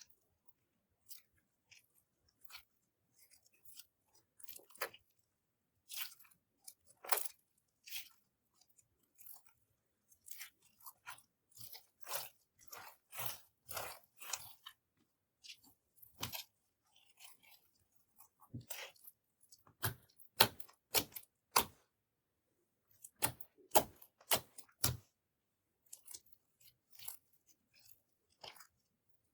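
Clear slime being squished and mixed, giving off short, sticky clicks and pops at irregular intervals that come in denser clusters now and then.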